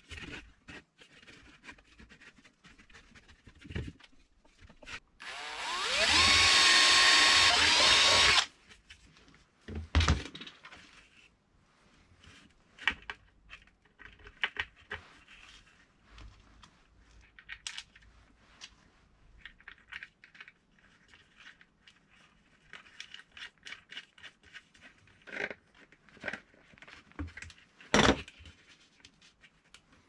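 Cordless drill running for about three seconds, starting about five seconds in, its pitch rising as it spins up and then holding. Around it are clicks and knocks of PVC pipe parts, screws and tools being handled on a wooden bench, with a sharp knock near the end.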